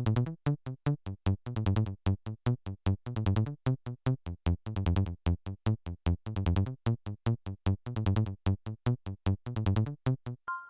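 Kilohearts Phase Plant software synthesizer playing a fast, evenly pulsed electronic sequence of short notes, about five a second, with a deep bass pitch. Near the end it stops and a clear bell-like tone begins.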